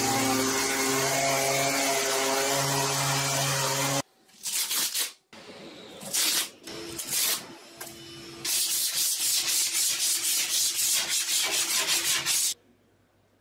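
Sanding: about four seconds of steady rubbing, then a few short separate strokes, then a run of quick, even back-and-forth strokes, about three a second, that stops abruptly near the end.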